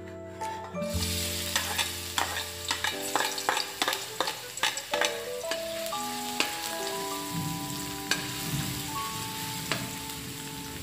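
Minced garlic dropped into a hot steel wok and sizzling as it fries, starting about a second in, with a metal spatula scraping and clinking against the wok as it is stirred. The scrapes come thick and fast over the first half, then thin out while the sizzle carries on.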